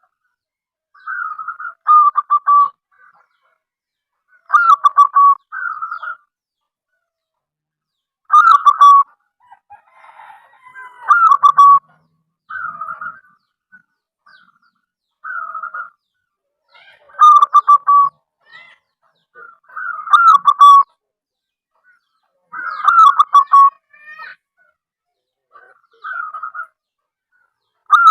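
Zebra dove (perkutut) cooing: a short phrase of quick staccato coos ending on a falling note, repeated about every two to three seconds.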